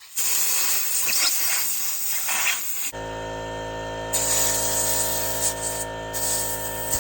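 Compressed air from a blow gun blasting through a lawnmower air filter to clean it out: a loud, rough hiss in uneven bursts. About three seconds in, a steady hum made of many even tones starts underneath it.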